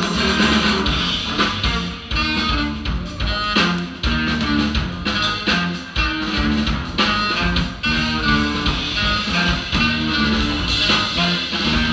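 Live band playing, led by guitar, with drums keeping a steady beat.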